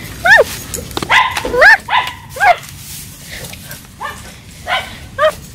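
A pet animal giving a string of short, high calls, each rising and then falling in pitch: several in quick succession, then a few more spaced out near the end.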